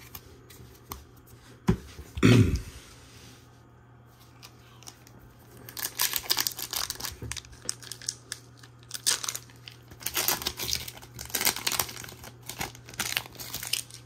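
A Disney Lorcana booster pack wrapper being torn open and crinkled by hand, in irregular ripping and crinkling bursts from about six seconds in until near the end. A short low thump about two seconds in.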